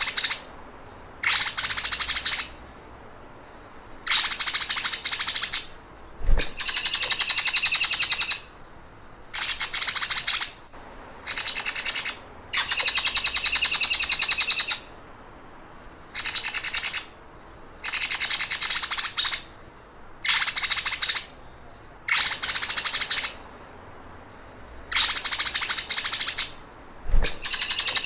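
A songbird sings a fast, buzzy, ticking trill like a running sewing machine. It comes in about a dozen phrases of one to two seconds each, with short pauses between them.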